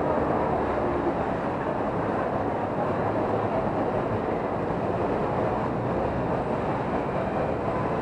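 Steady rumbling background noise that stays even throughout, with no distinct events standing out.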